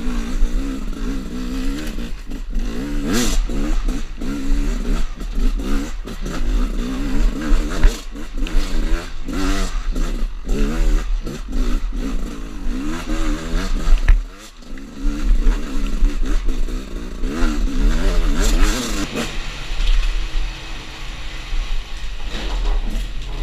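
2018 Gas Gas EC 300 two-stroke enduro motorcycle being ridden, its revs rising and falling constantly with the throttle. The engine briefly drops off about fourteen seconds in, then picks up again.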